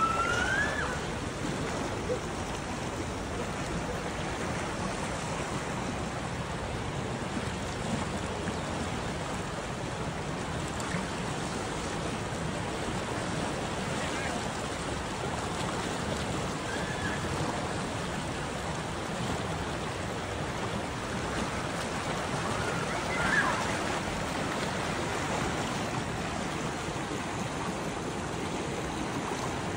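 Whitewater rapids of a mountain creek rushing steadily, with a few brief faint higher sounds over the water, the clearest about two thirds of the way through.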